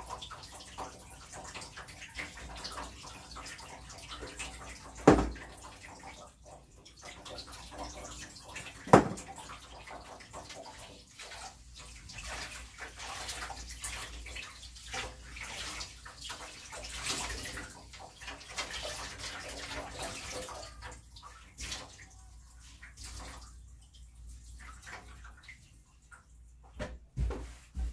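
Water running and splashing in a kitchen sink as dishes and a metal bowl are washed by hand, with two sharp clanks about five and nine seconds in. The water eases off about twenty seconds in, leaving a few scattered clatters.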